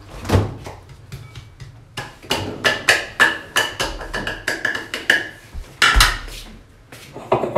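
A small white bowl tapped over and over by hand to knock chopped onion out into a mixing bowl: a quick, irregular run of sharp, ringing knocks, with a heavier knock about six seconds in.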